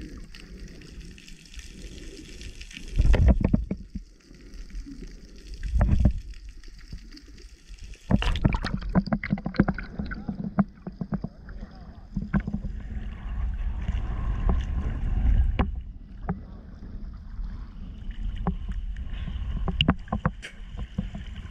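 Seawater heard from a camera held by a snorkeller: muffled underwater sound with two loud low rushes of moving water, then from about eight seconds in, splashing and lapping with many small splats as the camera comes up at the surface.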